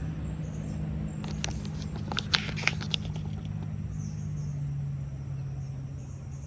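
Paper pages of an instruction manual being flipped, heard as a few short crisp rustles and ticks, over a steady low hum.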